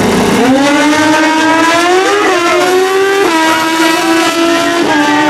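Two drag-racing sport bikes launch from the line and accelerate hard down the strip. Their engine pitch climbs, then drops back sharply at each quick upshift.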